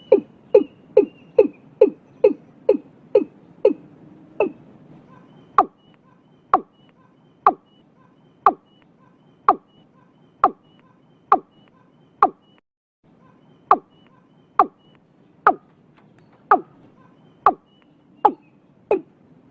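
Male watercock calling: a run of short, deep, falling notes, at first about two to three a second, then slowing to about one a second after roughly five seconds.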